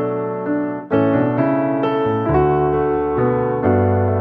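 Background music: a soft piano or electric-piano piece with sustained notes, a new note or chord coming in about every half second.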